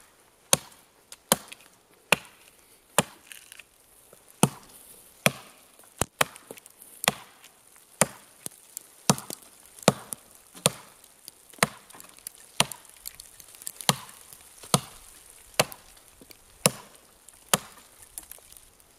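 Hults Bruk Aneby forest axe chopping into the trunk of a thin standing tree: about twenty sharp strikes at a steady pace of roughly one a second, the steel biting into the wood.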